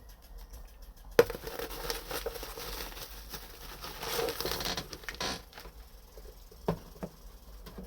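Packaging being handled and crinkled during an unboxing: a sharp click about a second in, then several seconds of crinkling, and a couple of light knocks near the end.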